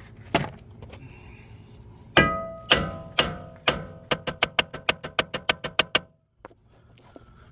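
Hammer blows ringing off a cast-iron brake rotor to break a rusted-on rotor free of the hub: a few single heavy strikes, then a fast run of about five blows a second that stops abruptly.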